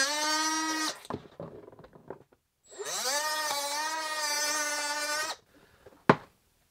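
Milwaukee M12 cutoff tool cutting the red plastic of a Packout drawer: a steady high motor whine that stops just under a second in, then spins up again with a rising pitch and runs steady for about two and a half seconds before stopping suddenly. A single sharp click near the end.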